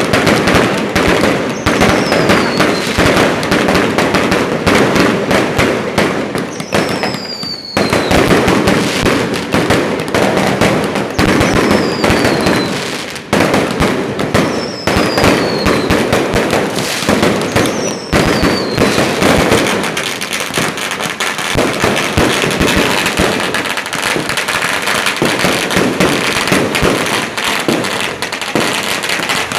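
A long string of firecrackers crackling without a break in rapid pops, with a short falling whistle every few seconds.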